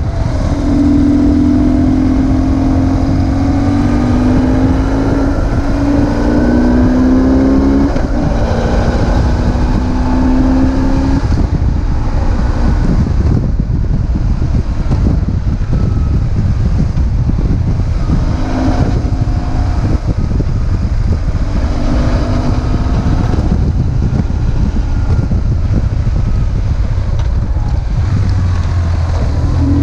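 BMW R1150GS's air/oil-cooled flat-twin boxer engine under way, its pitch rising as it pulls and dropping at gear changes about 8 and 11 seconds in, then holding lower and steadier with brief rises again later. Heavy wind rumble lies under it.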